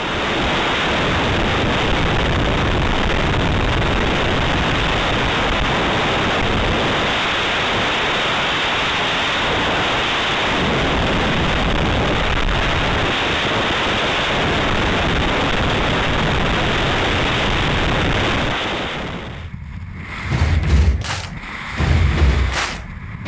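Freefall wind rushing over the camera's microphone, a steady loud noise. Near the end it drops and turns into uneven low gusts buffeting the microphone.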